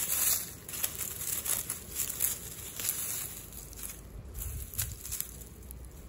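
Dry fallen leaves and pine needles crackling and rustling as a hand rummages through them to pick young mugwort. The crackles come in quick, irregular bursts, loudest in the first couple of seconds, then grow fainter and sparser.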